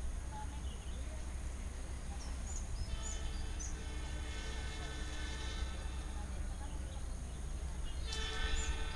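Train horn blowing twice: a long blast of about two and a half seconds, then a shorter, louder one near the end, over a steady low background rumble.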